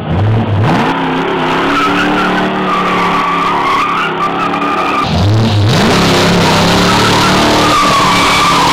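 Ford Maverick's 302 V8 revving hard while the rear tyres spin and squeal in a burnout. The engine note climbs sharply near the start and again about five seconds in, and after the second climb a loud, steady tyre screech and hiss take over.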